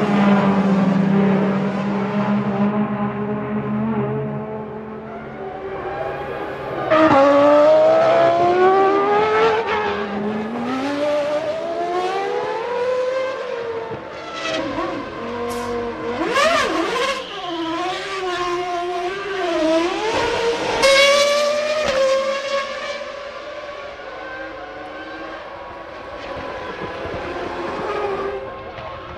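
Formula One cars racing past, their high-revving engines rising and falling in pitch. The loudest passes come about seven seconds in and again about twenty-one seconds in.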